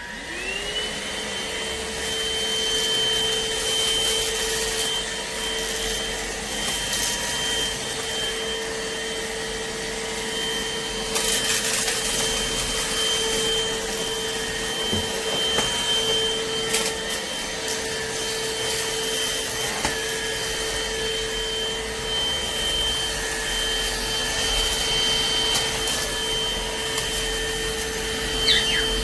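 Rowenta XPert 6.60 cordless stick vacuum switched on: its motor whine rises to a steady pitch within about a second, then runs evenly with a rush of air and a few brief clicks.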